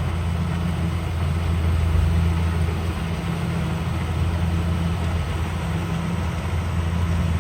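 Rice combine harvester's engine running steadily with a deep, even hum.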